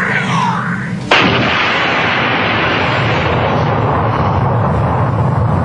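Recorded battle sound effect played over the stage speakers: a falling tone, then about a second in a sudden blast that carries on as a steady roar of explosions and gunfire with heavy low rumble. It is a war-scene barrage far too big for a single rifle shot.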